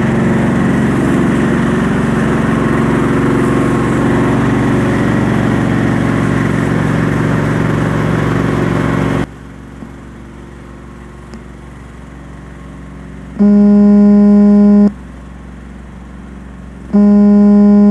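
Small engine of a ride-on cubicle-cleaning machine running steadily while its rotary brush works; the sound cuts off abruptly about nine seconds in. Two loud, held electronic tones of about a second and a half each follow near the end, a few seconds apart.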